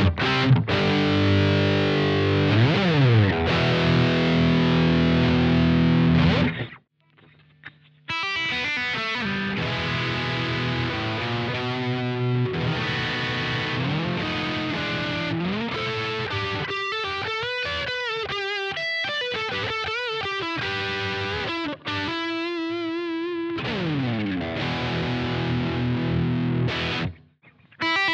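Fender Stratocaster electric guitar played with distortion, comparing pickups: first heavy chords on a Seymour Duncan Hot Rails bridge pickup, with a sliding note about 3 s in. After a short break about 7 s in, the guitar plays on the stock single-coil pickup, with bent and wavering notes. A second short break comes near the end, just before the Hot Rails returns.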